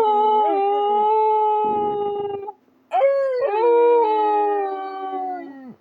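Dog howling: two long, steady howls, the first breaking off about two and a half seconds in, the second starting a moment later and sliding down in pitch as it ends.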